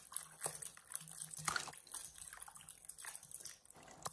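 Faint water swishing and dripping as a hand stirs and lifts zucchini strips in a stainless steel bowl of water, rinsing off the salt brine, with scattered small splashes.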